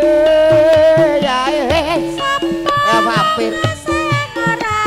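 Live Javanese traditional band music: a held, wavering melody line with bending pitch over regular drum strokes.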